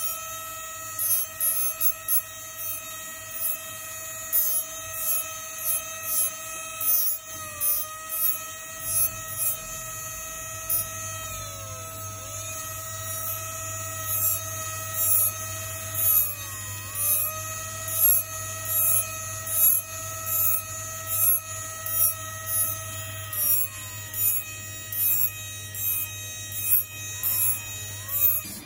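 Electric rotary handpiece (jeweller's micromotor) running with a steady high whine, its pitch dipping briefly several times as the bur is pressed into the gold and slows under load. Repeated short cutting strokes of the bur on the metal, roughly one a second.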